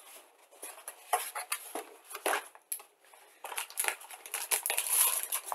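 Bagged plastic model-kit sprues being handled in a cardboard box: scattered clicks and rustles. Denser crinkling of the clear plastic bags comes over the last two seconds.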